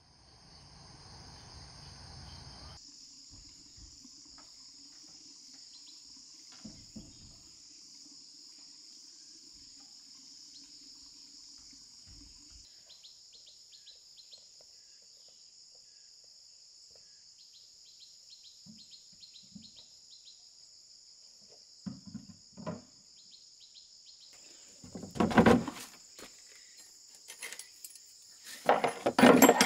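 Steady high-pitched insect chorus trilling without a break. Near the end, loud clatters and rustles twice as a plastic jug and a tool are handled in a blue plastic basket.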